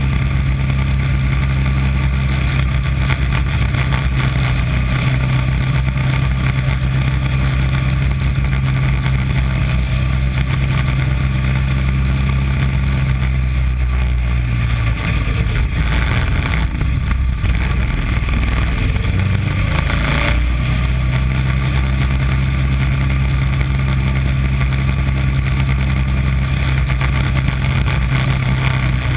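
Small mini race car's engine running hard at a steady high speed, heard on board. For several seconds around the middle its note wavers and dips before settling back to the same steady pitch.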